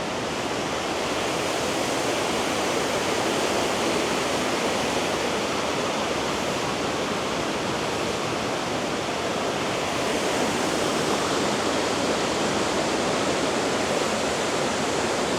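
Water pouring over a small waterfall in a beck: a steady rushing roar with no change.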